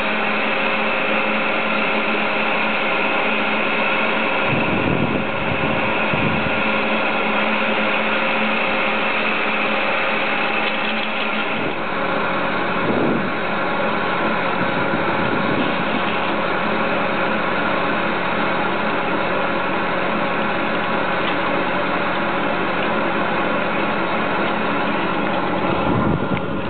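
Diesel-hydrostatic drive of a WSO platter ski lift running steadily at the bullwheel: an even engine hum with several steady tones.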